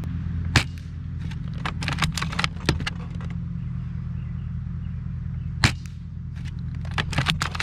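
L96 bolt-action spring airsoft sniper rifle firing at a phone: a sharp crack about half a second in and another near six seconds. Between and after them come lighter clicks of the bolt being worked. A steady low hum runs underneath.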